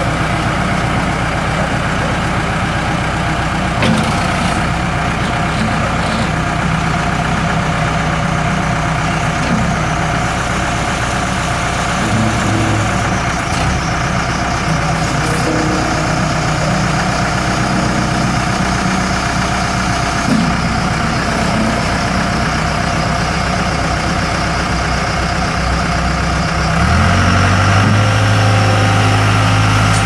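The four-cylinder turbo diesel engine of a 2002 Case 40XT skid steer running steadily near idle. About 27 seconds in it speeds up and runs louder and higher-pitched.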